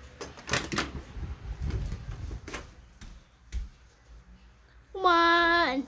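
Light knocks and clicks of someone walking barefoot with a handheld phone. Near the end a child's voice sings one held note.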